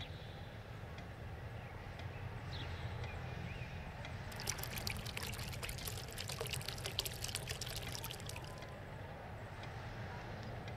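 Water poured into a glass jar holding goldfish, splashing and bubbling for about four seconds from about four seconds in; a second goldfish is being tipped in with its water.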